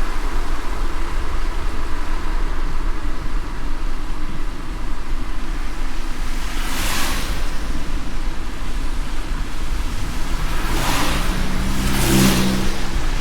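Car driving in the rain, heard from inside: a steady low road rumble under a hiss of rain and tyre spray. Brief whooshing swells come about halfway through and twice near the end, the last with a short low hum.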